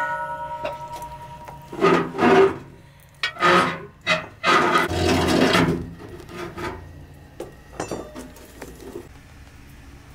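A metal ladle clinks against a pot, with a short metallic ring, then scrapes repeatedly as stew is spooned onto a ceramic plate. A few light clicks of crockery follow near the end.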